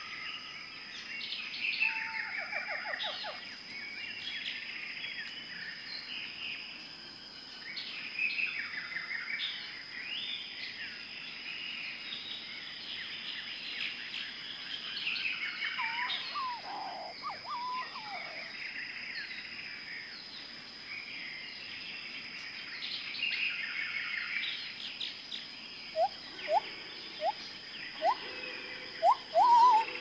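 Many small birds chirping and trilling over a steady high-pitched whine. Near the end, a run of louder short rising calls, about two a second.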